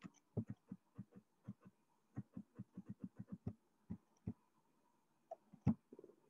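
Computer mouse clicking and its scroll wheel ticking as a web page is scrolled: a string of short, dull clicks, irregular and coming quickly around the middle, with one louder click near the end.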